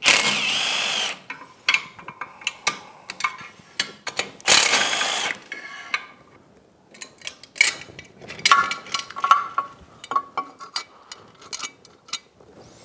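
Cordless drill-driver spinning bolts out of an outboard's aluminium upper casing in two short runs, one at the start and one about four and a half seconds in. Scattered clicks and clinks of the loosened bolts and metal parts being handled follow.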